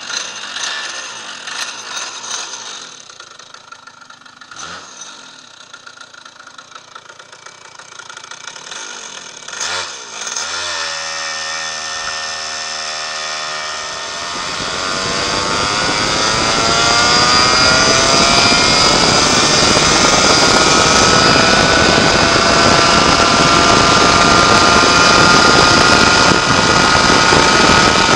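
West Bend 820 two-stroke go-kart engine starting with a few short bursts, then settling to a steady idle. About halfway through it goes to full throttle, its pitch climbing steadily as the kart gathers speed, then holds a loud, steady high-rpm note near top speed for the last ten seconds or so.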